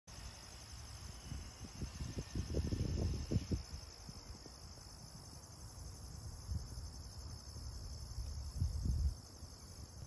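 Insects, likely crickets, trilling steadily in a high, finely pulsing chorus. Low rumbles come and go about two seconds in and again near the end.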